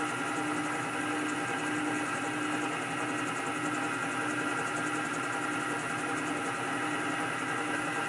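Steady machine hum with several constant tones, unchanging throughout.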